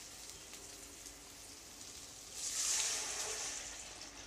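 Tamarind water poured into a hot steel kadai of onions fried in oil: about two seconds in, a loud hiss and splashing as the liquid hits the hot pan, dying away over the next second or so.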